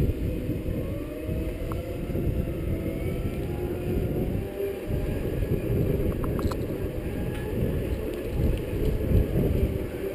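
Steady low rumble of wind and motion noise on the microphone of a camera riding a Segway, with a faint whine from the Segway's drive rising and falling in pitch with speed.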